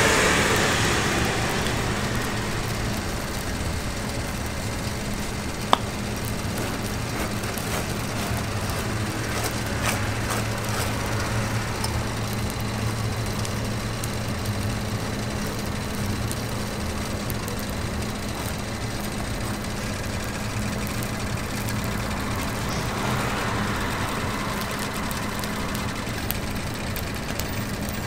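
A steady low machine hum with a hiss over it, like a motor or fan running, and a single sharp click about six seconds in.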